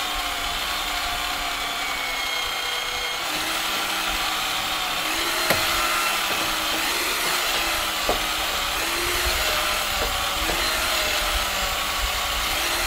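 Portable electric winch motor whining steadily under load as it reels in its cable and drags a mini truck up a trailer deck. The pitch wavers slightly with the load, and there are a few sharp clicks.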